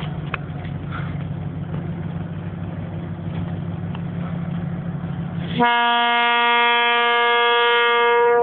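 ST44 diesel-electric locomotive's two-stroke V12 diesel engine running with a steady low drone as it pulls a freight train. About two-thirds of the way through, its horn sounds one long, steady blast of nearly three seconds: the signal given when the train departs.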